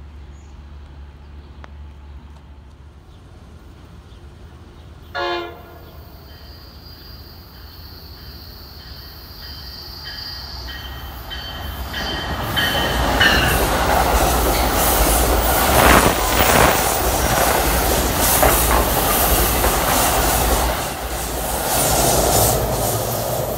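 NJ Transit push-pull train, an ALP-46A electric locomotive pushing a multilevel coach set, sounds one short horn toot in the distance about five seconds in. It then draws closer and passes the platform, the wheel and rail noise growing loud from about twelve seconds in and staying loud as the locomotive goes by near the end.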